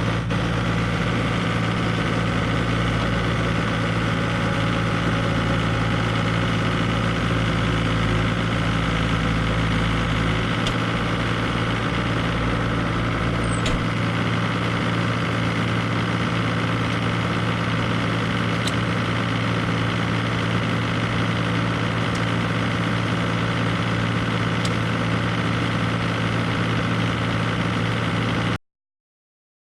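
Bobcat Toolcat's engine idling steadily, with no revving. It cuts off suddenly near the end.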